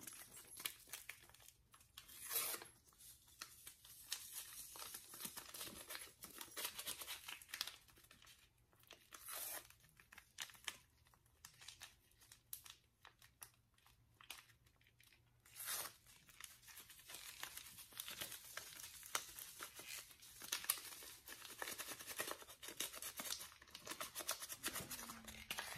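Small seasoning packets, Goya ham-flavored concentrate and chicken bouillon, being torn open and crinkled by hand: faint irregular crackling with a few louder rips.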